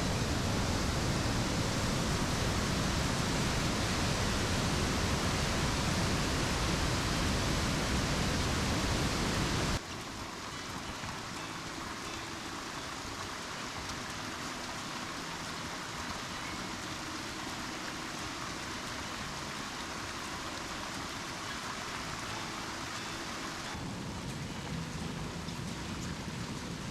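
Steady rushing noise of rain and running water, with a low rumble in the first part; the level drops abruptly about ten seconds in and the sound changes again near the end.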